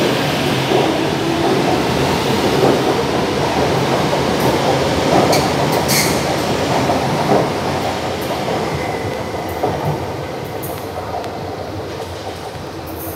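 São Paulo Metro Line 5 Frota P electric train running past close by on elevated track, a steady rumble of wheels on rail with a few sharp clicks about five and six seconds in. The sound fades over the last few seconds as the train moves away.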